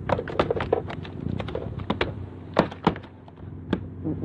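A quick, irregular run of sharp taps and knocks close to the microphone, thinning out about three seconds in.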